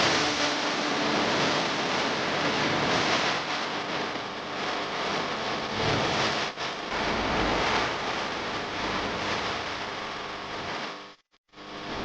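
Steady rushing noise with no clear pitch, dipping briefly about six and a half seconds in and cutting out abruptly near the end.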